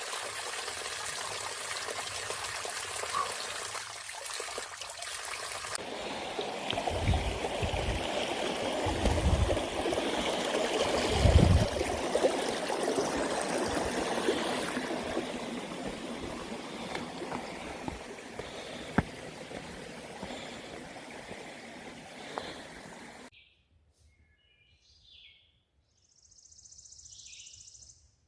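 Running water of a stream trickling and splashing steadily, with a few low thumps on the microphone near the middle. It cuts off abruptly, leaving quiet with a few birds chirping near the end.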